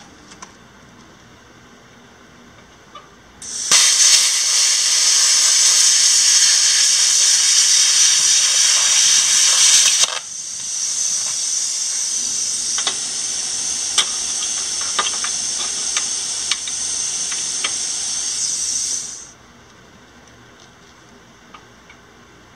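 Handheld plasma cutter trimming the end of a steel pipe freehand: a loud, steady hiss of air and arc that starts about four seconds in. About ten seconds in it drops to a quieter hiss with scattered crackles, then cuts off a few seconds before the end.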